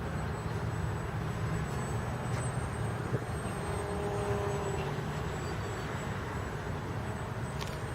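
Distant whine of a small RC flying wing's motor and propeller in flight, its pitch slowly rising and falling with the throttle, over a steady low rumble.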